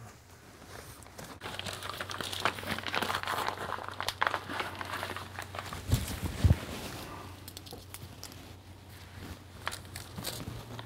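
A fabric blood pressure cuff being wrapped around an upper arm and handled: irregular rustling and crinkling with small clicks, and two soft thumps about six seconds in. A faint steady low hum sits underneath.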